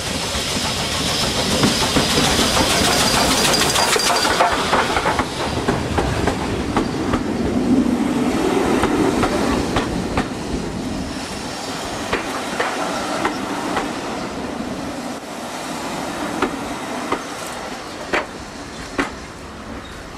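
Steam train passing: a loud hiss for the first four seconds or so, then the carriages rumbling with sharp clicks over the rail joints, growing fainter toward the end.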